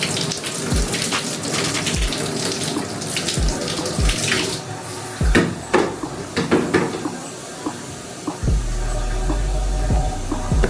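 Tap water running into a bathtub, with irregular splashing and scattered low thumps. A steady low rumble comes in about eight seconds in.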